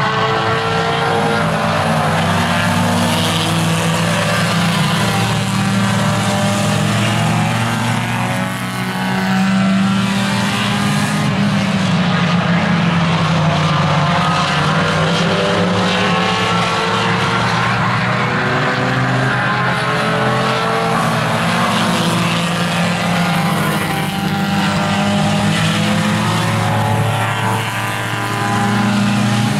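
Several tuner-class race cars running laps on a short oval, their engines rising and falling in pitch as they speed up and back off. Two or more engine notes overlap as the cars pass close together.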